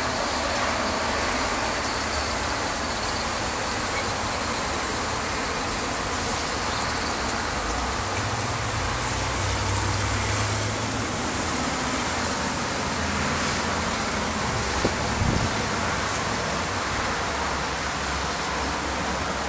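Steady street traffic noise with a vehicle engine passing about halfway through, and a couple of brief knocks about three-quarters of the way in.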